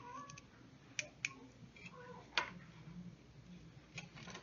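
A few sharp, separate clicks and taps, the loudest about halfway through, from small electronic modules and their connectors being handled.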